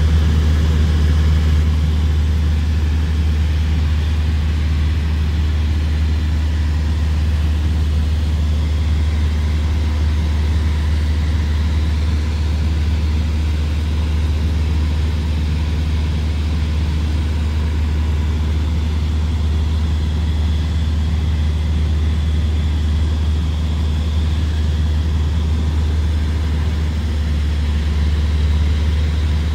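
Light aircraft's engine running steadily in flight, a deep, even drone heard from inside the cockpit.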